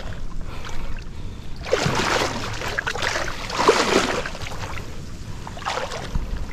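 Water splashing and sloshing around a small boat moving through the water, in surges about every two seconds over a low rumble.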